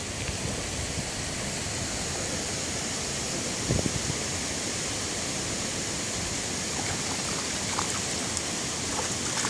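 Steady rush of creek water flowing over rocks, with a brief low thump about four seconds in.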